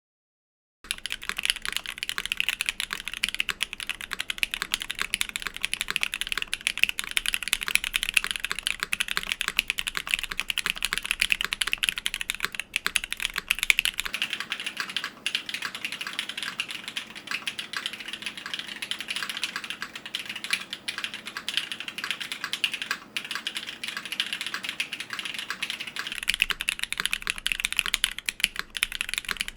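Fast, continuous typing on the ASCII-F prototype, a custom mechanical keyboard with an aluminium case and plate, hotswap PCB, factory-lubed BSUN BCP switches and GMK keycaps. The key clacks begin about a second in and run as a dense, unbroken stream.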